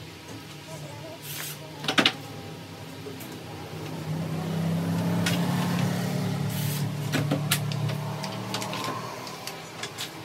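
A low, steady engine or motor hum that grows louder about four seconds in and fades toward the end, with a few sharp knocks.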